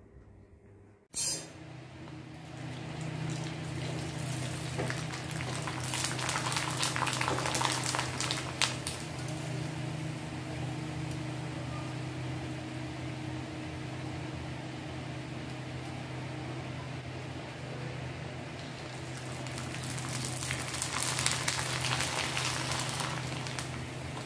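Rice-flour papad frying in hot oil in a kadhai, sizzling and crackling, starting abruptly about a second in and swelling twice, with a steady low hum underneath.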